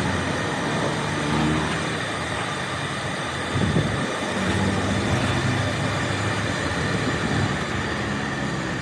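A train running past, a steady noise of wheels on the rails with a low hum underneath.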